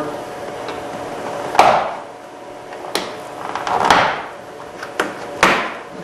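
A 1994 Toyota Camry's upper door trim panel being pried off by hand: a handful of sharp clicks and snaps about a second apart, as its little pins pop out of their grommets in the door.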